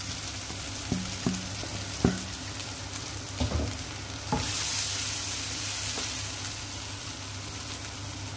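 Food sizzling in a hot frying pan while a spoon stirs it, tapping and scraping the pan several times. About four seconds in, the sizzle grows louder.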